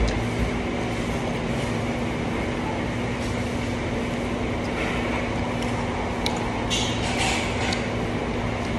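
Close-up eating by hand over a steady background hum: chewing and wet mouth sounds, with a few short clicks and smacks near the end.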